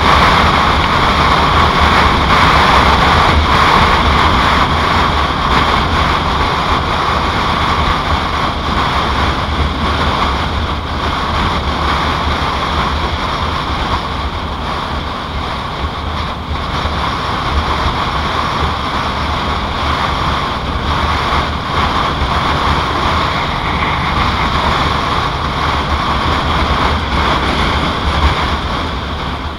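Wind rushing over the microphone of a 2007 Yamaha Royal Star Tour Deluxe motorcycle riding at road speed, with the steady low drone of its V4 engine beneath. The noise is continuous and eases slightly about halfway through.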